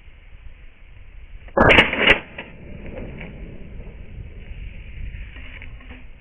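Two loud shots about 0.4 s apart from a Saiga-12 semi-automatic 12-gauge shotgun, with a short echo dying away after them.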